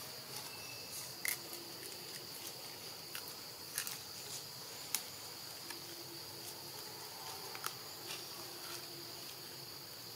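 Steady high-pitched chirring of insects, crickets or cicadas, with a few scattered sharp clicks over it.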